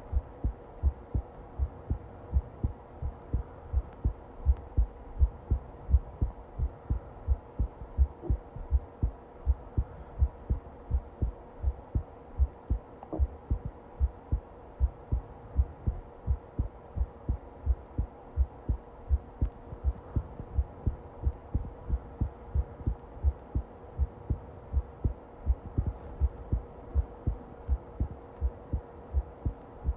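Heartbeat recorded up close: a steady, even rhythm of low thumps, with a faint steady hum underneath.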